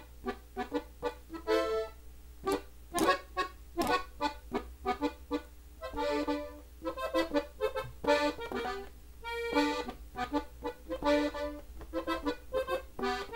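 Gabbanelli button accordion, tuned in E and played in D, playing the song's closing melody on the treble buttons: a run of short, detached notes with a few held ones.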